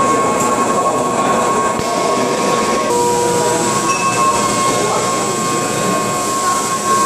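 CNC milling machine cutting a metal part under flood coolant: a steady, loud mix of cutting noise and coolant spray hiss, with a constant high whine from the spindle. A lower steady tone joins in briefly about three seconds in.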